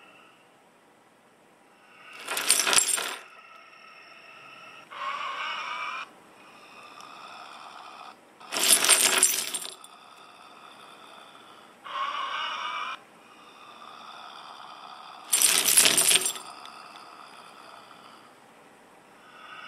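Looping sound effects from a zombie-face phone app: three loud, harsh noise bursts about seven seconds apart, each about a second long. Between them come two shorter steady pitched tones that switch on and off abruptly.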